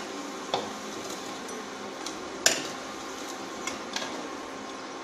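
A metal slotted spoon clinks against the kadhai and plate about four times, the loudest about halfway through, as fried pakoras are lifted out of the oil. Under it, the induction cooktop hums steadily.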